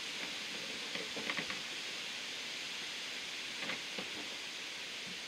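Steady outdoor background hiss, with a few faint short clicks about a second in and again near four seconds.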